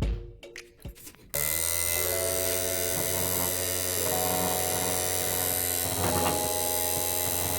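Small DC motor of a homemade soda-can vacuum cleaner switched on after a few clicks about a second in, then running at a steady, loud buzzing whir.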